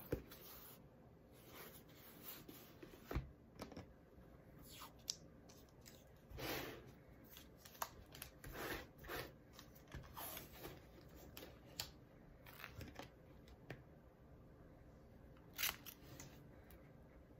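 Quiet handling sounds: light taps and knocks from a hardcover book being set down and handled, with a few short ripping sounds of painter's tape being pulled off its roll.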